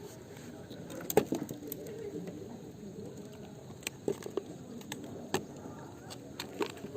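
A dove cooing over a steady low background, with a few sharp clicks and taps; the loudest click comes about a second in.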